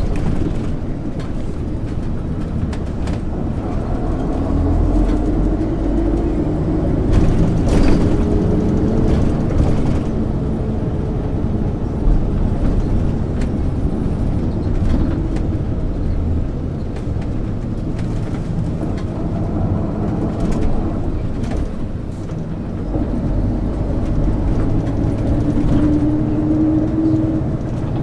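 1999 MAN ÜL 353 intercity bus under way, its engine and drivetrain running steadily under the road noise. The engine note rises as it pulls up through the revs, eases off, and climbs again near the end, with a sharp knock about eight seconds in.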